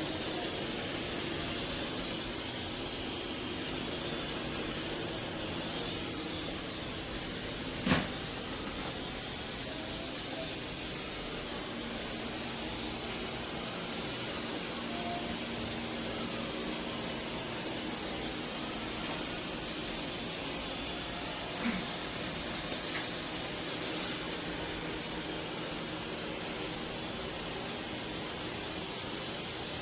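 eufy S1 robot vacuum running steadily, a constant rush of suction. A single sharp knock comes about eight seconds in, and a few short clicks follow later on.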